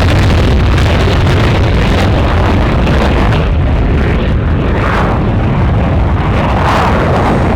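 Jet aircraft passing overhead with a loud, rumbling roar. Its hissing high end fades after about three seconds as it moves away, while the low rumble carries on.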